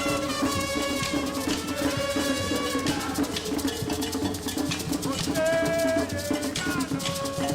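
Background music: held melodic notes over a steady percussion beat.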